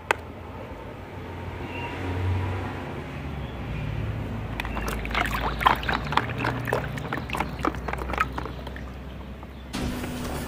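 Plastic toy dinosaurs being moved by hand through muddy water in a plastic tub: wet splashing and sloshing with quick sharp clicks, busiest from about halfway through, over a low rumble. The sound changes abruptly near the end.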